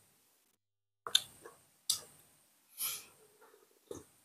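Eating sounds: four short, wet chewing and mouth clicks about a second apart, the third a little longer.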